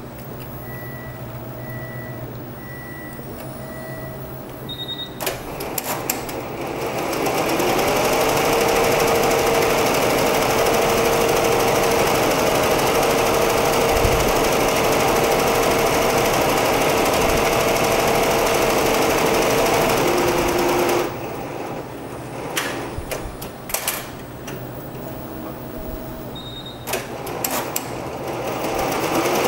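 Multi-head Barudan commercial embroidery machine stitching out a crosshair. After a few short beeps it starts up and runs steadily at speed, a fast needle clatter over a constant hum. It stops about two-thirds of the way through with a few clicks, then starts stitching again near the end.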